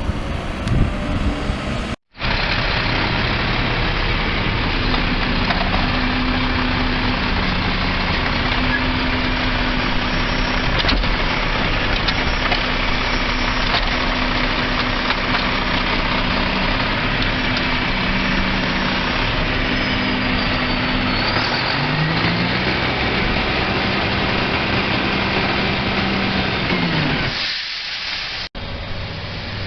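Garbage truck engine running steadily, its pitch stepping up and down and rising about two-thirds of the way through. The sound cuts off abruptly twice, at about two seconds in and near the end.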